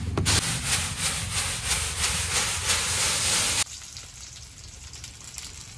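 Unhusked rice grains rustling in a bamboo winnowing tray as it is shaken, a rhythmic swishing, rubbing noise. About three and a half seconds in it cuts off abruptly to a much quieter background.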